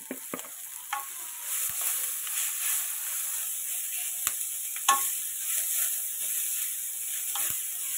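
Chopped onion, green chilli and ginger sizzling in hot oil in a kadhai, stirred with a wooden spoon. The sizzle builds up strongly about a second and a half in, and the spoon knocks against the pan a few times.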